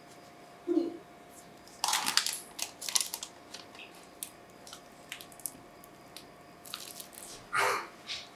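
Disposable plastic piping bag crinkling and rustling in short bursts as it is handled and squeezed, with scattered light clicks and taps.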